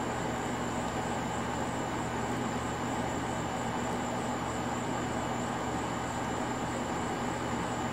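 Steady outdoor night background: a constant low hum and hiss with a continuous high-pitched tone, unchanging throughout with no distinct events.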